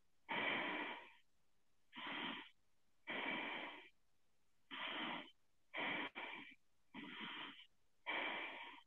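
A man breathing audibly while holding a cobra backbend, about seven breaths in quick succession, one every second or so.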